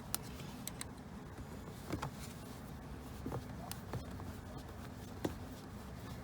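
A handful of light, separate clicks and taps from plastic trim pieces and clips being handled and fitted, over a faint steady low hum.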